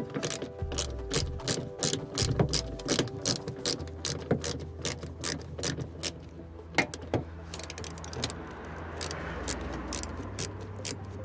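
Socket ratchet clicking in a steady run of sharp clicks, several a second, with a brief pause now and then, as a nut is turned on the earth point.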